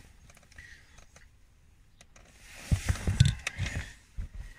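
Quiet for about two and a half seconds, then a short cluster of soft knocks and scrapes with a few sharp clicks: handling noise of hands and tools in the car's footwell.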